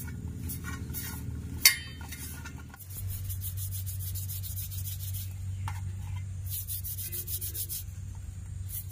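Oiled palms rubbing together, rolling soft dough balls into elongated pieces: rapid rasping rubs that come in quick runs, over a low steady hum. One sharp clink with a brief ring comes about a second and a half in.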